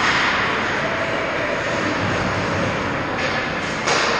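Indoor ice rink ambience: a steady rushing noise, with short sharper bursts about three and four seconds in.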